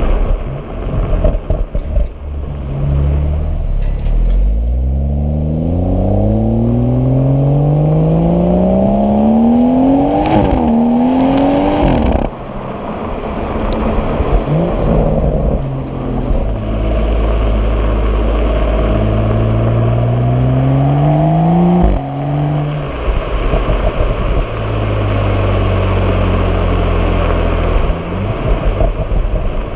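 BMW M135i/M140i turbocharged straight-six accelerating under load with the automatic gearbox: the engine note climbs steadily, drops sharply at an upshift and climbs again. This happens twice, in the first half and again near the two-thirds mark, with a steadier cruising drone in between.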